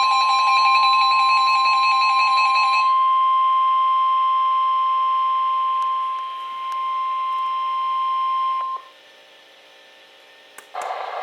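NOAA Weather Radio 1050 Hz warning alarm tone: one steady, loud, unbroken tone that cuts off suddenly about nine seconds in. For the first three seconds it overlaps another receiver's warbling alert tones.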